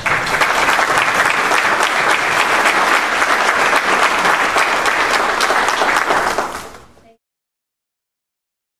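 Audience applauding: many hands clapping in a dense, steady patter that fades out about seven seconds in.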